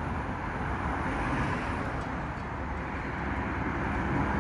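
Steady outdoor background rumble, an even noise without distinct events.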